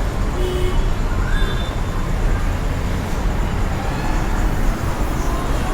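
Steady road-traffic rumble, a low even noise with no distinct events.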